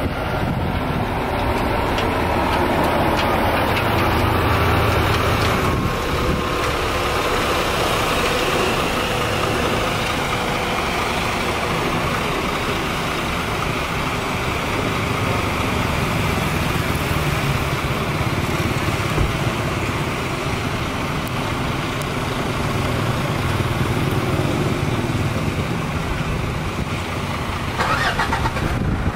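Diesel engines of large coach buses running at low speed as the buses manoeuvre, a steady low rumble, with a short noisy burst near the end.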